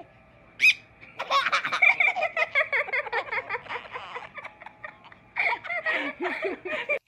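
Baby laughing in rapid runs of giggles and belly laughs, one stretch from about a second in to about four seconds, another near the end. A single brief, sharp high squeak comes just before the laughter starts.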